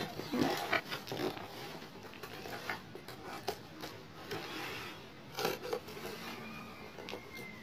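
Hands handling and turning a large cardboard box: rubbing, scraping and rustling on the cardboard, busiest in the first second or so, with a few sharp knocks later on.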